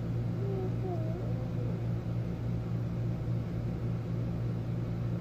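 A steady low mechanical hum, like a motor or fan running, with faint distant voices in the first second or so.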